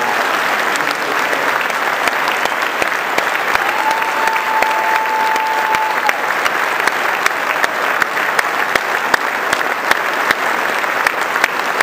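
Convention audience applauding steadily, with one held whistle tone for about two seconds near the middle.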